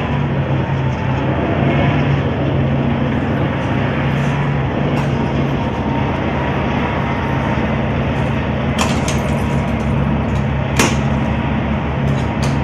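A heavy diesel vehicle engine running steadily close by, with several sharp cracks of gunfire; the loudest crack comes about 11 seconds in.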